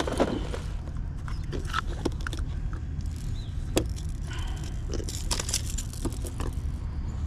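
Handling noise as an angler works pliers and a line to unhook a small jack: scattered small clicks, taps and rustles over a steady low rumble, with a brief hissy rustle about five seconds in.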